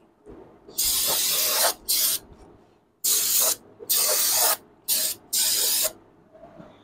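Aerosol cleaner spray can hissing in six short bursts as it is sprayed onto a new brake rotor. The first burst and the later ones each last about half a second to a second.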